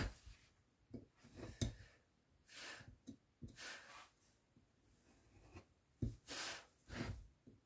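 Hand woodcarving: a carving blade cutting into wood in short, irregular scraping strokes, with a few light knocks.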